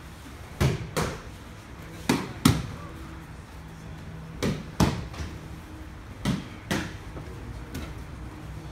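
Aikido partners being thrown and taking breakfalls on the dojo mats: four pairs of loud thuds and slaps, about two seconds apart, the two hits in each pair less than half a second apart, then a weaker one near the end.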